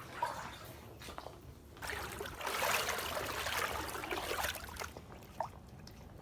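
Floodwater sloshing and splashing as a person wades through it about waist-deep, louder for a few seconds from about two seconds in.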